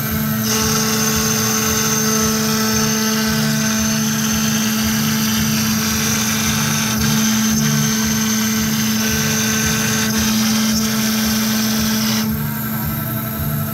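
MultiCam CNC router's VFD-driven spindle running with a steady whine as the bit routes lettering grooves into a fibreboard sheet. The higher cutting noise drops away near the end while the spindle tone carries on.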